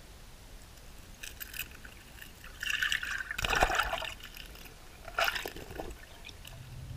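Water gurgling and sloshing against an underwater camera housing, in three short bursts, the loudest about halfway through.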